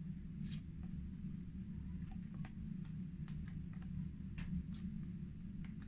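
Faint room tone: a steady low hum with a scattered handful of soft rustles and clicks.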